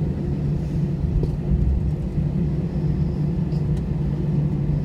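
Steady low rumble inside an Airbus A320 cabin as the jet rolls on the ground after landing, engines at idle, with a few faint rattling clicks.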